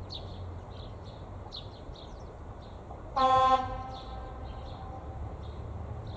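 Horn of an approaching ČD class 810 railbus: one short blast about three seconds in, sounded as a warning for the unguarded level crossing. Birds chirp faintly around it.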